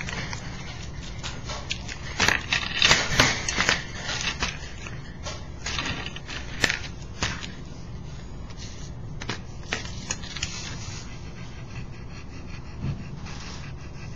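Irregular clicks and light knocks of small objects and tools being handled on a workbench, bunched about two to four seconds in and again around six to seven seconds, over a steady low hum.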